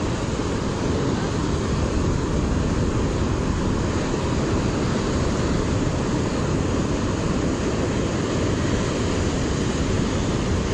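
Steady rush of surf breaking over a rocky reef, with wind blowing on the microphone.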